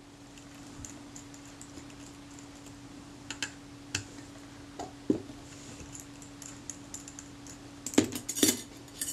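Scattered light metallic clicks and taps of a small screwdriver and tiny camera parts being handled while a screw and spring are taken off a film camera's top mechanism. They come singly through the middle and in a quick cluster near the end, over a steady low hum.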